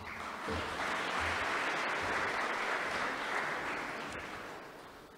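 Audience applauding, building up within the first second and fading out over the last two seconds.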